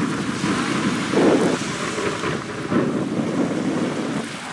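Wind buffeting the camera microphone in uneven gusts, a rough low rumble that swells about a second in and again near the three-second mark.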